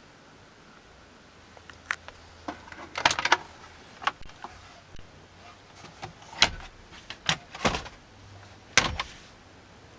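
A string of sharp plastic clicks and knocks from a 2009 Dodge Ram's dashboard glove box being unlatched, opened and handled.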